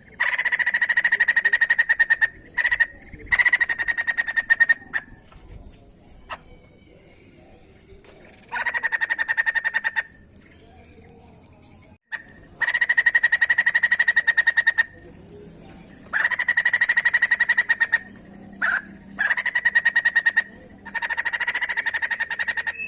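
White-crested laughingthrush (poksay jambul) giving loud, rapid chattering calls in repeated bursts of one to two seconds, separated by short pauses.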